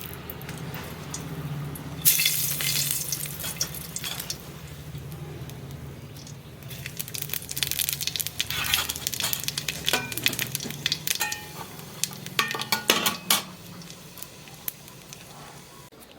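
Food sizzling in hot oil in a cooking pan. A sudden loud sizzle comes about two seconds in and fades over a couple of seconds. Later a spatula scrapes and clatters against the pan as the food is stirred.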